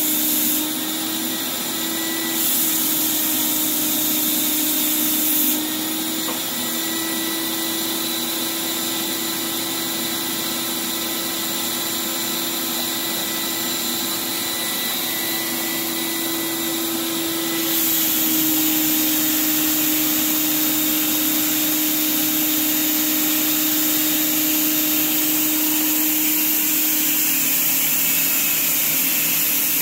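Paint spray rig running steadily with a held hum and hiss. Stretches of stronger hissing come and go as the spray gun is triggered: briefly at the start, again from about two to five seconds in, and from about eighteen seconds to the end.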